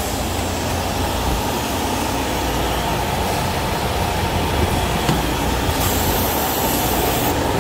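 Steady low hum and rumble of a vacuum glass lifter's machinery running, the suction unit that holds the glass sheets.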